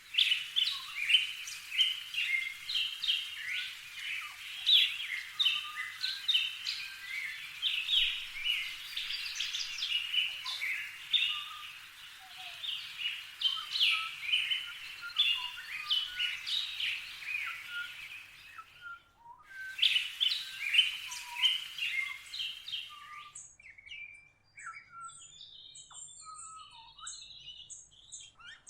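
Many small songbirds chirping and calling in a dense, overlapping chatter, briefly cut off about two thirds of the way through, then thinning to sparser, higher-pitched chirps near the end.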